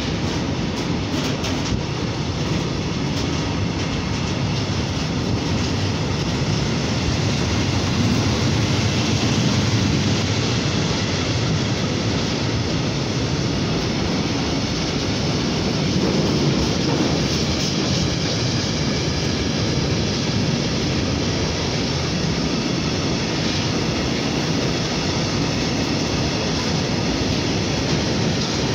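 Freight train of tank wagons passing close by at speed, its wheels rumbling steadily and loudly on the rails.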